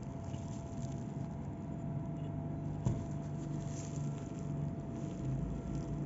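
Steady low background hum with a faint high tone, under light handling noise from fingers on the shoe and phone, with one sharp click about three seconds in.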